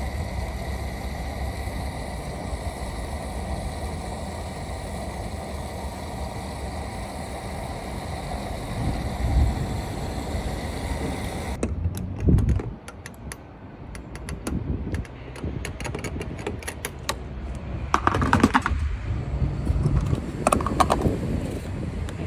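Fuel dispenser running as petrol flows through the nozzle into the car's tank, a steady hiss and hum that cuts off abruptly about halfway. Rapid clicks and a few knocks follow as the fuel nozzle is handled and withdrawn and the filler cap is closed.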